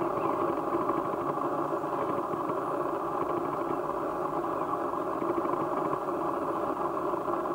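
A steady mechanical drone, like an engine running at constant speed, even and unchanging throughout.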